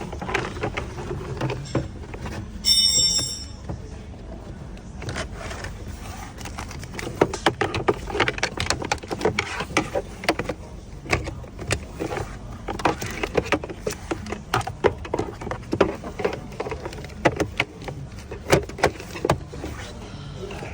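Clicks, knocks and rattles of hands working the plastic glove box and cabin air filter housing of a Toyota Camry, many small sharp strokes in quick succession, with a brief high squeak about three seconds in.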